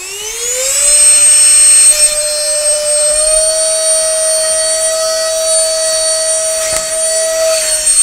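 Baseus Capsule cordless handheld car vacuum's motor spinning up with a rising whine, then running at a steady high pitch while its nozzle holds sheets of paper by suction. The pitch steps up slightly about three seconds in, and there is a brief click about seven seconds in.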